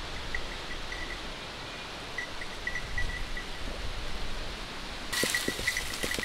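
Dry brush and dead leaves rustling and scraping as someone pushes on foot through thick thorny cover. About five seconds in, the rustling gets louder, with a few sharp cracks of twigs.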